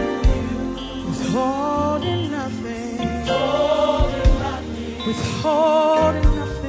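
Gospel worship music: a choir and a lead voice hold long sung notes with vibrato over a band, with bass and a few drum hits.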